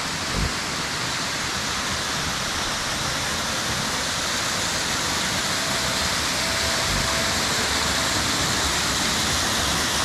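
Jana Waterfall's water rushing down, a steady, dense roar of falling water. Two short low thumps come through, about half a second in and again about seven seconds in.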